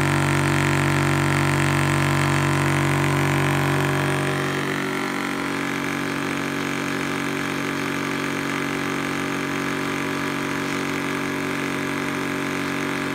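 Electric high-pressure PCP air compressor (Zhongyan 4500 psi) running steadily while it fills an 18 cubic inch tank, its pressure climbing quickly. It makes a continuous mechanical drone, whose deep hum drops off and gets a little quieter about four seconds in.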